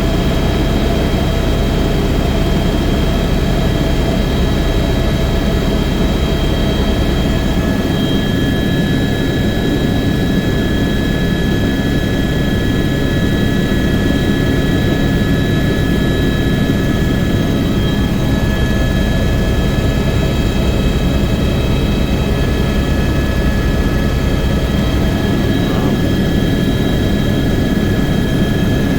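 Helicopter in flight: a steady high turbine whine over a loud, unbroken low rumble of engine and rotor.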